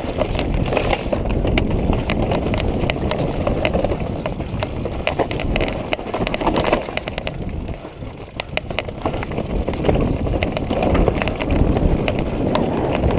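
Orbea mountain bike riding downhill over a rocky dirt trail: a steady rumble of tyres and wind on the camera, broken by rapid clicks and rattles of the bike over the rocks, dipping briefly about eight seconds in.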